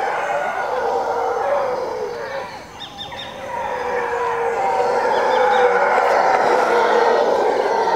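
A troop of mantled howler monkeys howling, long overlapping calls that ease off briefly about a third of the way through and then build again, louder.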